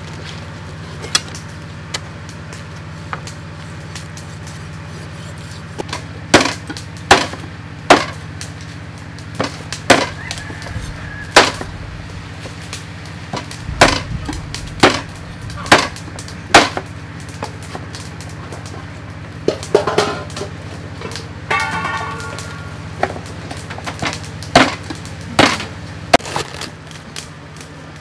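Meat cleaver chopping pork ribs on a thick round wooden chopping block: sharp single strikes at uneven intervals, some in quick runs of two or three, over a steady low hum.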